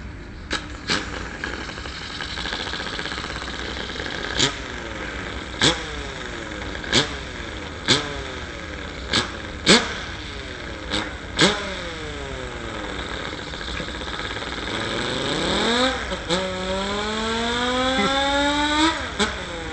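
Electric sander's motor blipped on and off several times, each blip a click followed by a falling whine as it spins down, imitating an engine being started. Then it spins up with a rising whine, climbs slowly, dips and rises again near the end, like a car pulling away and changing gear.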